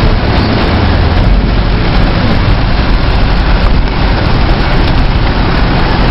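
Heavy tropical-storm rain pouring down loudly, with a car engine running as a low hum underneath.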